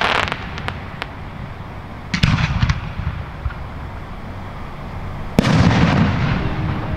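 Aerial firework shells bursting. A cluster of sharp cracks comes about two seconds in, then a loud boom about five seconds in with a long echoing tail.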